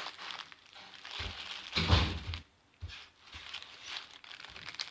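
Crinkling and handling noises, with a few knocks and one louder thump about two seconds in.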